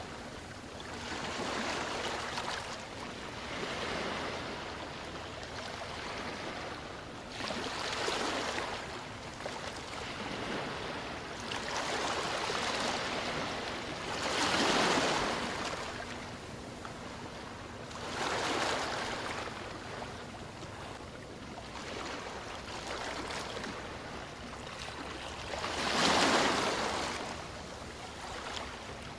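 Sea waves washing onto a shore: a steady wash with a surge every several seconds, the loudest surge near the end.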